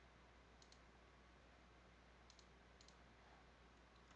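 Faint computer mouse clicks over near-silent room tone: three clicks, each a quick press-and-release tick pair, as objects are picked on screen.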